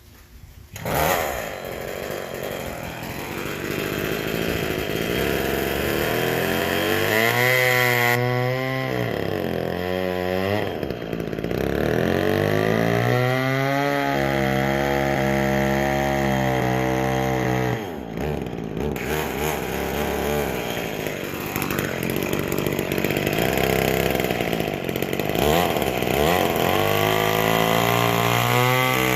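Small McCulloch Mini Mac 120 two-stroke chainsaw running, starting up about a second in and revving up and down. It holds high revs for several seconds at a time and drops back briefly about 10 and 18 seconds in.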